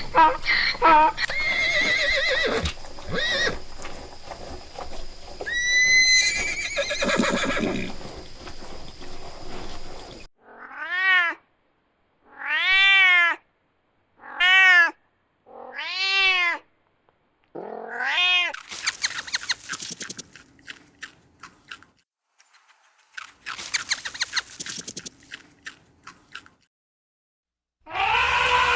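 A cat meowing about five times in a row, each meow rising then falling in pitch, after a busy stretch of mixed noises; rapid faint clicking follows the meows.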